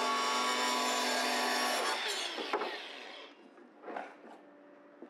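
Angle grinder cutting along the edge of a fiberglass laminate with a steady whine. About two and a half seconds in it is lifted clear and winds down, and a faint knock follows about four seconds in.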